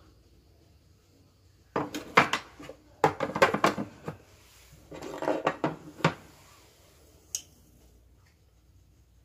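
Tableware and containers being handled on a countertop: a spoon, a cup and saucer, a plastic lid and a glass coffee jar clink and rattle in three short bursts, followed by a single click.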